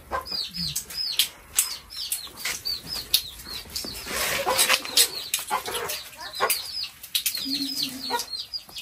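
Small birds chirping: a steady run of short high chirps, two or three a second, with sharp knocks scattered among them.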